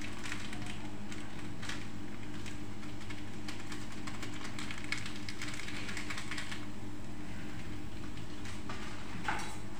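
A plastic-foil seasoning sachet strip crinkling and crackling as it is torn open and handled, in uneven spurts, over a steady low hum.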